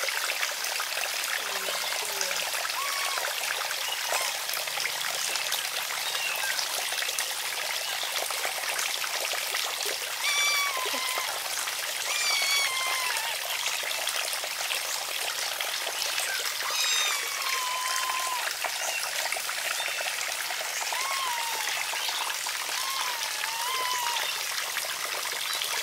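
Water trickling steadily, with short high chirping calls scattered over it, several in quick succession about ten to thirteen seconds in and again near the end.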